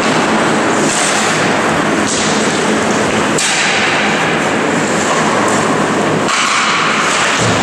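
Loud, steady noise of ice hockey play in an echoing indoor rink, from skates on the ice and sticks and puck, with a few abrupt shifts in its tone.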